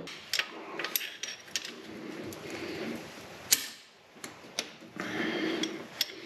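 Pliers clicking and scraping on a screw driven into the old camshaft oil seal as it is levered out of the engine. Scattered irregular clicks and knocks run over a faint scraping, with one sharper metallic click about three and a half seconds in.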